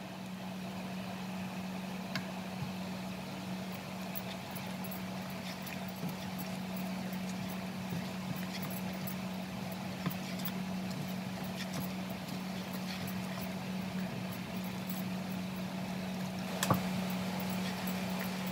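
A small wire whisk stirring thick besan batter in a bowl, with faint scattered clicks of the wires against the bowl, a slightly sharper one near the end. A steady low hum runs underneath throughout and is the loudest sound.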